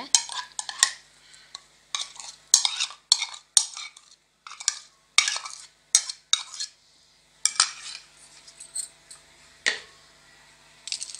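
Spoon scraping and clinking against a bowl in a dozen or so short, irregular strokes, scooping thick marinade paste out onto a plate of fish. The strokes thin out after about eight seconds, with one last scrape near the end.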